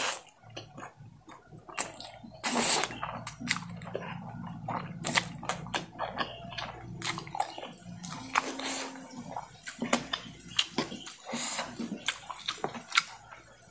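Noodles being slurped and chewed: several wet sucking slurps, the longest about two and a half seconds in and another near the end, with many small wet mouth clicks of chewing in between.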